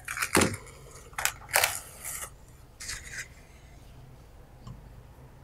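Plastic cling film being peeled off a glass bowl, giving five short crinkling rustles over the first three seconds or so.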